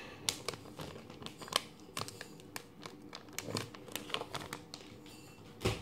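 Clear plastic packet of sketch pens crinkling as it is handled: a run of irregular crackles, with one louder crackle near the end.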